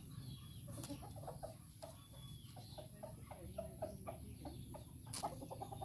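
Chickens clucking: a run of short, repeated calls, with a sharp click about five seconds in.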